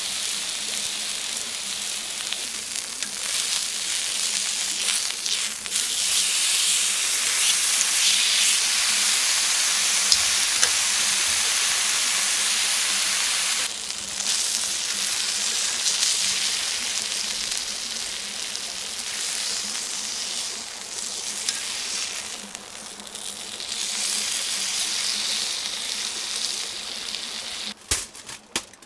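Beef steak sizzling on a hot griddle plate over a charcoal fire: a steady frying hiss that swells and eases. Near the end come a few sharp clicks and crinkles as tongs lift the steak onto aluminium foil.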